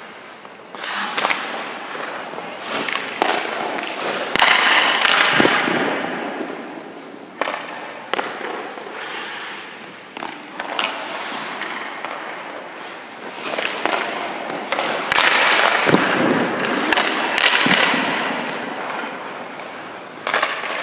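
Ice hockey shooting drill: sharp cracks of pucks off sticks and into goalie pads, a dozen or so spread irregularly. Around them come the long scrapes of skate blades and pads sliding across the ice, two of the loudest about four and fifteen seconds in.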